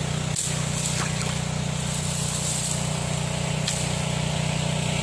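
A small engine running steadily: a low, even drone that holds the same pitch throughout, with a couple of faint clicks in the first second.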